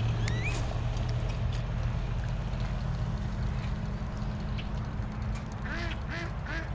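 A steady low hum, with ducks starting a quick series of quacks near the end.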